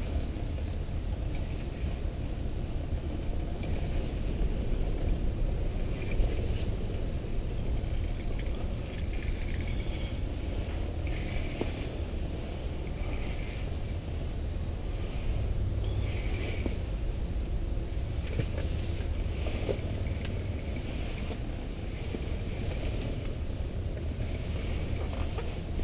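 Ice-fishing reel and tackle being worked while a large fish is played on a short jig rod, with light rattling and clicking over a steady low rumble.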